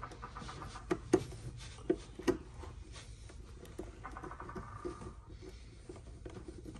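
Light handling noise: a small hand tool being worked against carpet and trim, with four sharp clicks in the first two and a half seconds and soft rubbing after.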